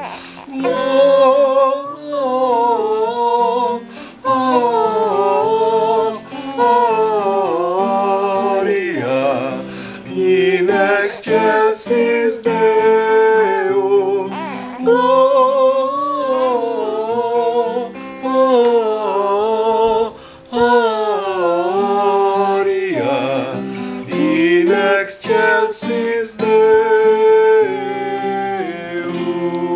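A voice singing a slow hymn melody to an acoustic guitar accompaniment, with short pauses between the sung phrases.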